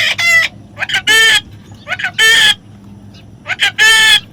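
A parrot calling over and over: short, harsh, pitched squawks, each led by a brief quick note, about four in a row at roughly one every second and a quarter.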